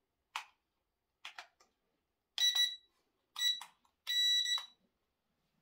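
Remote-control speedboat electronics powered up on the bench: a few short buzzes, then three high electronic beeps about a second apart, the last held longest.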